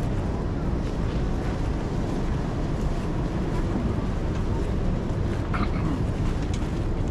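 Street-market ambience: a steady low rumble, with faint snatches of distant voices.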